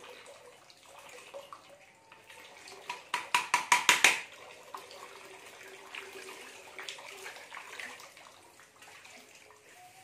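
Tap water running and splashing into a large steel basin. About three seconds in comes a quick run of about eight sharp, ringing knocks of a wooden pestle against a small metal bowl.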